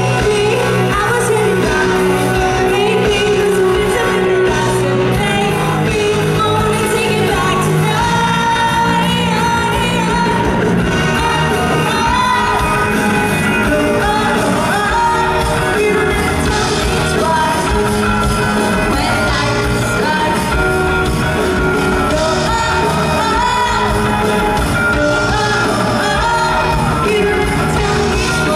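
A live pop-rock band plays: a female lead singer sings into a handheld microphone over electric guitar, bass and drums, loud and continuous, with the ring of a large hall.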